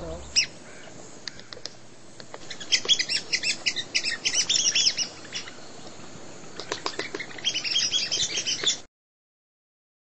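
Bird calls in quick chattering runs of sharp, high notes: one run from about two and a half to five seconds in, another near the end, then the sound cuts off suddenly.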